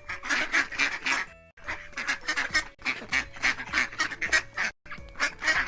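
Several ducks quacking rapidly and repeatedly, in runs broken by a few short, abrupt gaps.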